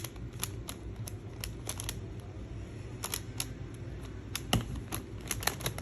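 Plastic twisty puzzle cube being turned quickly during a solve: a run of irregular clicks of the layers snapping round, with one sharper knock about four and a half seconds in.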